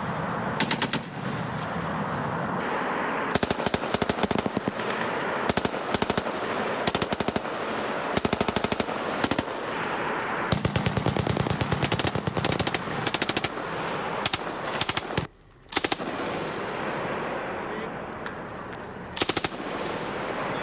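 Machine guns firing repeated bursts of automatic fire, some short and some a second or two long, about ten bursts in all.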